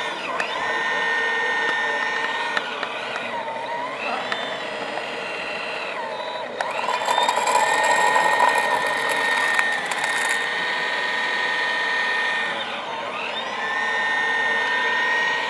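Radio-controlled Volvo scale excavator's electric hydraulic pump whining as the boom, arm and bucket work. The whine's pitch dips and recovers several times as each movement starts and stops, and it is loudest with an added hiss for a few seconds around the middle.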